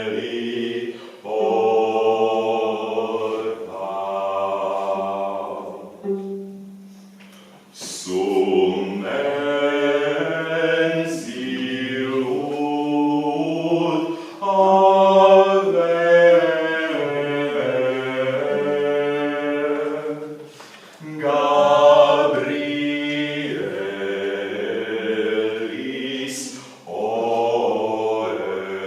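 Slow, chant-like singing in long held notes, with several pitched lines sounding together in harmony. It breaks off briefly about six seconds in and again about three-quarters through.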